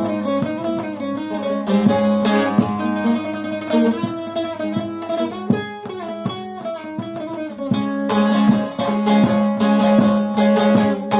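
Long-neck bağlama (Turkish saz) played solo in a plucked improvisation: a quick melody of picked notes over a steady low drone from the open strings.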